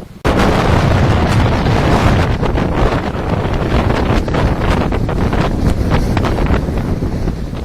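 Strong wind buffeting the microphone: a heavy, gusty rumble with rushing hiss over it. It comes in abruptly just after the start and stays loud.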